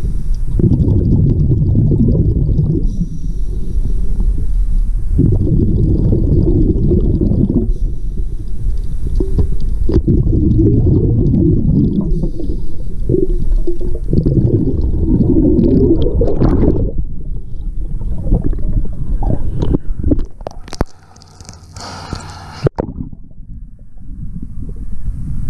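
Scuba diver breathing through a regulator underwater: a thin hiss on each inhale, then a loud, rumbling gurgle of exhaled bubbles, repeating about every five seconds. Toward the end the breathing rhythm stops and there is a short burst of splashing as the diver reaches the surface.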